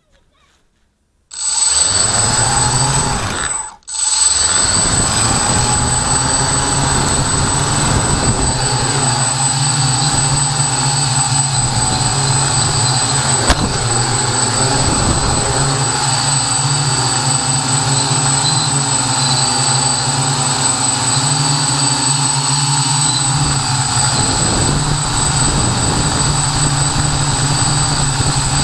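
Hexacopter's brushless motors and propellers spinning up about a second in, stopping briefly near four seconds, then running steadily in flight with a low hum and a steady high-pitched whine, heard from a camera mounted on the frame.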